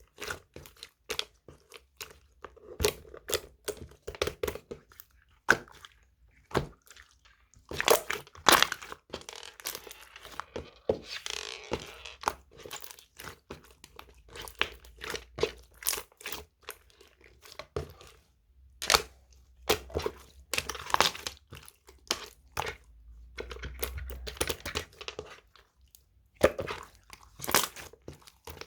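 Homemade slime being squished and pressed by hand, giving a run of irregular sticky clicks and crackling pops.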